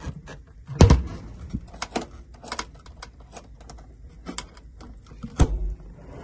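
An Engel fridge-freezer's lid is shut with a loud thud about a second in. A string of light metal clicks and rattles follows, then a second heavy thump about five seconds in.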